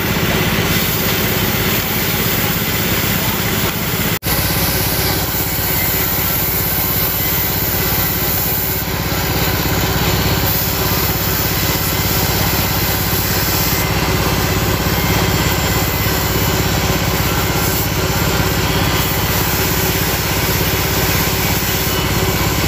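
Oxy-fuel cutting torch hissing steadily as it cuts through steel weighbridge deck plate, over the steady hum of an engine running. There is a brief break about four seconds in.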